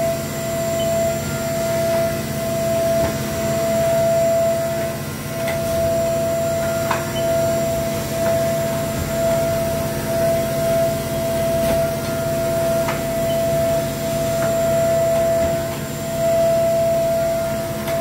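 Haas VF-4SS vertical machining center with a steady high whine during an automatic tool change. Its double-arm tool changer swings in and swaps the tool in the spindle, with a few sharp clicks and clunks as it moves.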